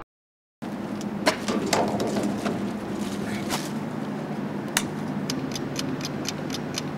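Even ticking, about four ticks a second, like a clock, starting about five seconds in over a steady low hum, with a few scattered clicks before it.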